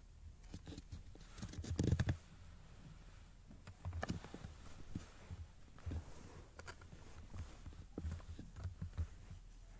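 A guinea pig scrabbling about under bed blankets: irregular soft patter and rustling of fabric, with the loudest flurry about two seconds in and further bursts later on.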